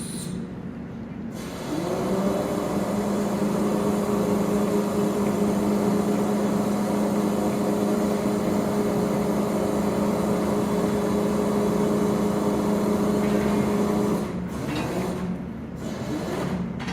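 A motor starts up with a brief rising whine, runs at a steady, even-pitched hum for about twelve seconds, then stops; the lower, quieter machine noise goes on under it.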